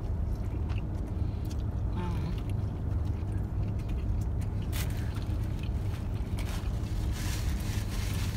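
Steady low rumble of a car's idling engine heard from inside the cabin, with chewing and small clicks and rustles from people eating.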